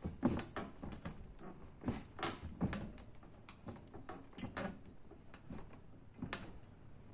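Homemade steel Skinner-type gravity machine worked by hand through its lever: irregular metallic knocks, clanks and rattles from the swinging weights, linkage and frame. The loudest knocks come just after the start, around two to three seconds in, and again shortly before the end.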